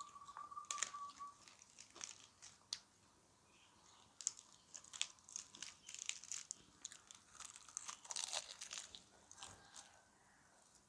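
Close-miked eating sounds: crunchy bites and chewing, heard as short crisp crackles and clicks at irregular intervals.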